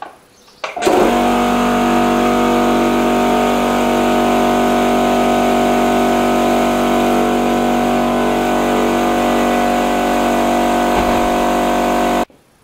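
Tagred oil-lubricated piston air compressor starting up abruptly about a second in and running loudly and steadily as it fills its tank on its first start, then stopping abruptly near the end.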